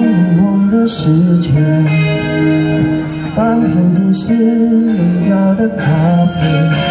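Live band music: a ballad with guitar accompaniment and a sustained, gliding melody line over it, heard from the audience.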